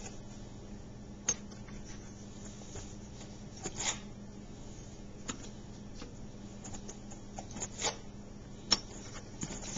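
A spoon scooping baking soda out of a cardboard box: scattered light scrapes and taps a second or more apart, over a faint steady hum.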